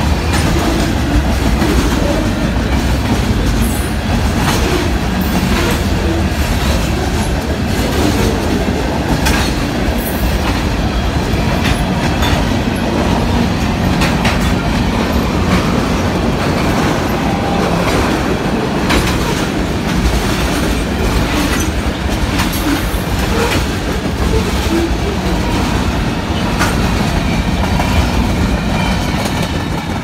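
Mixed freight cars of a manifest train rolling past at close range. The steel wheels give a steady rumble with irregular clacks over the rail joints and crossing. The noise starts to fall away near the end.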